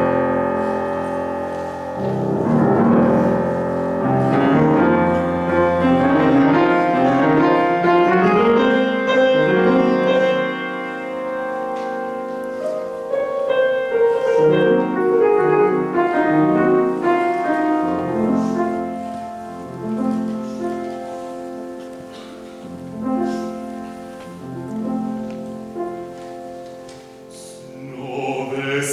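Grand piano playing the solo introduction to a classical art song, a flowing passage of chords and melody that swells and eases in loudness. A baritone voice comes in right at the end.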